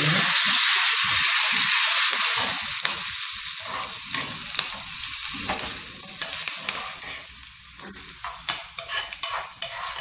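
Tempering of cumin seeds, cashews and fresh curry leaves sizzling in hot oil in a small steel pan as it is stirred with a metal spoon. The sizzle is loudest in the first two seconds and dies down, and the spoon clicks and scrapes against the pan more often toward the end.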